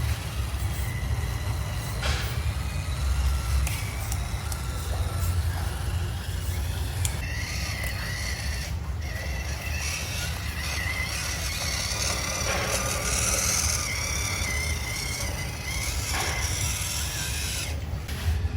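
Small electric motor and gears of a mini RC truck whining, rising and falling in pitch through the middle stretch, over a steady low rumble.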